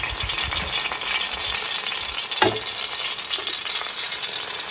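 A T-bone steak and its juices sizzling steadily on the hot grill grate of a Ninja Foodi, freshly cooked. A few low bumps come in the first second or so, and a single sharp knock about halfway through.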